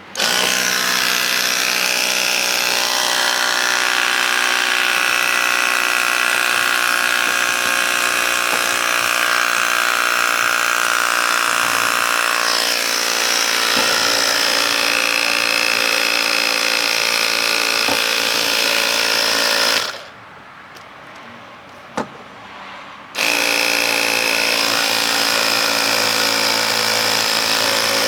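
Small electric air compressor running steadily as it inflates a bicycle tyre. It stops for about three seconds near the end, with a single click in the pause, then starts up again.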